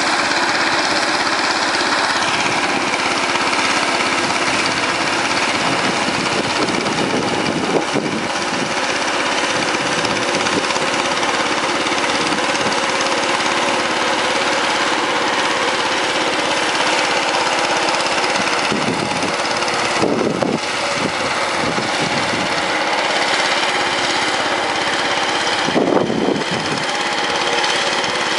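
Power tiller engine running steadily while ploughing a paddy field, with brief changes in its note about two-thirds of the way through and again near the end.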